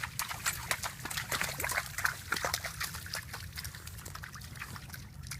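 Shallow creek water trickling and splashing in quick, irregular splashes, busiest in the middle, over a steady low rumble.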